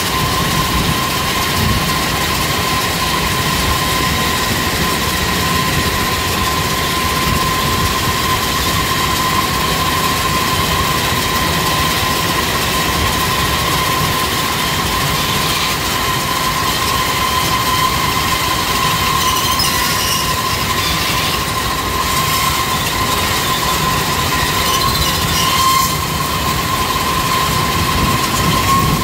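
Grain-loading conveyor running continuously with a constant high whine, while loose rice pours off its end onto the pile in a barge's hold.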